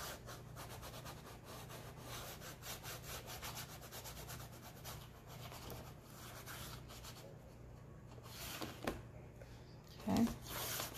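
White chalk scratching against black poster board in quick repeated strokes as an area is filled in. The strokes ease off about seven seconds in.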